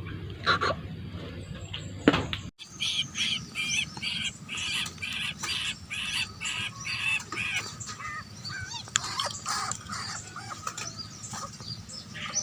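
Young birds of prey (raptor chicks) chirping, a run of repeated high cheeps about two a second, then more scattered, varied calls. Before the calls start, about two and a half seconds in, there is a low rumble with a few clicks.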